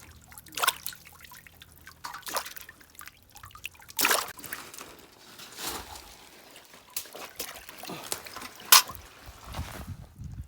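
Water splashing and trickling in irregular bursts every second or two. The loudest splash comes near the end.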